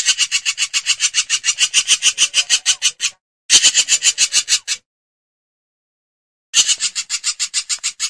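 Hornbill calling in rapid pulsed series, about nine or ten pulses a second, in three bouts: a long one of about three seconds, a shorter one, then another near the end.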